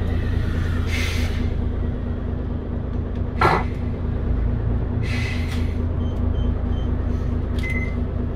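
Mitsubishi Fuso Aerostar city bus's diesel engine idling steadily while the bus stands, heard from inside. Two short hisses of air come about a second and about five seconds in, with a sharper puff near the middle.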